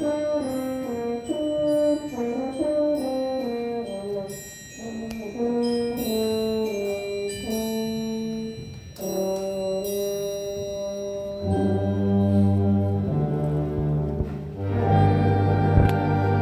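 School concert band: a single brass instrument plays a solo melody, note by note. Near the end the full band comes back in with low sustained brass.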